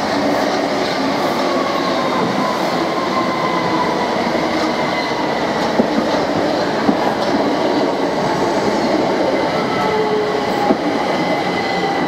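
Southern Class 377/6 Bombardier Electrostar electric multiple unit running past at close range: a steady rumble of wheels on rails with a faint whine slowly falling in pitch. A few sharp clicks come as wheels pass over rail joints in the second half.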